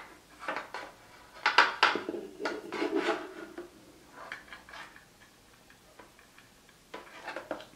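Light plastic clicks and rubbing as a blue SATA data cable is handled and its connector pushed into a Samsung 840 EVO SSD. The clicks are busiest in the first half, then faint ticks, with a few more clicks near the end.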